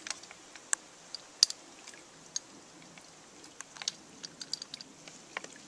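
Katadyn Vario pump water filter and its plastic hoses being handled while the hoses are fitted: scattered light clicks and crinkles, with one sharper click about a second and a half in.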